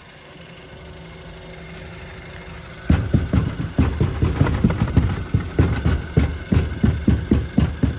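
A car's underbody panel being banged on repeatedly from beneath to find a loose, rattling part: after a steady low hum, sharp knocks start about three seconds in and keep going at about three to four a second.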